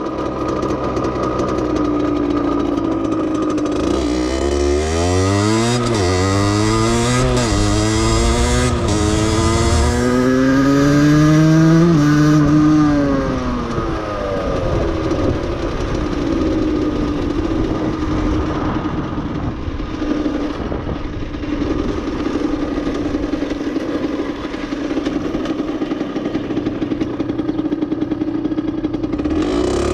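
Aprilia 50cc moped's two-stroke engine, fitted with an aftermarket exhaust, pulling away and revving up through several gears, its pitch rising and dropping back at each shift. About halfway through it eases off and settles into a steady pitch while cruising.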